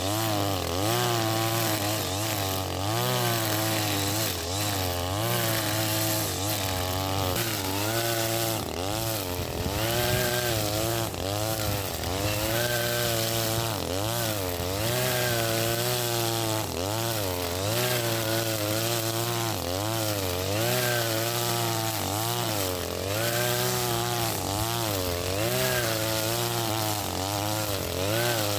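Husqvarna 542RBS 42cc two-stroke brush cutter running at high revs. Its pitch dips and recovers every second or two as the square 2.4 mm trimmer line cuts through grass.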